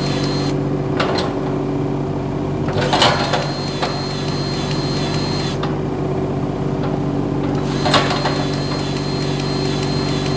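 Kubota U27 mini excavator's diesel engine running steadily at idle, with a few short clicks and knocks about one, three and eight seconds in.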